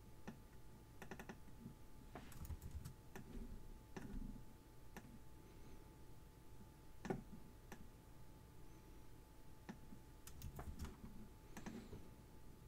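Faint, scattered clicks of a computer mouse and keyboard, some singly and some in quick runs of several, the loudest about seven seconds in.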